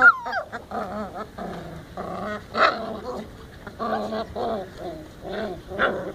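Several young puppies whining and yelping over one another in short, wavering cries, one after another.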